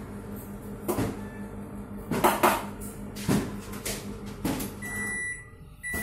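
LG microwave oven running on heat with a steady low hum, its turntable motor not turning, with a few sharp knocks. About five seconds in the hum stops and the oven gives its end-of-cycle beeps: a high beep, then a second one near the end.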